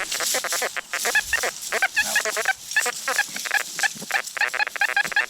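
XP Deus metal detector chattering with rapid, broken, nasal tones as the coil sweeps over ground crowded with iron and junk targets.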